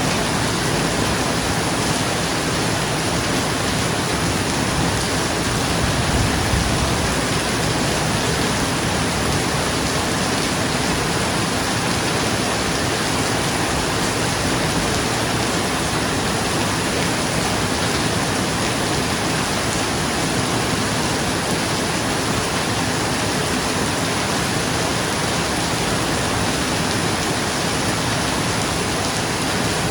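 Steady rain falling on a roof, an even hiss of many drops with no let-up. A low rumble swells briefly about six seconds in.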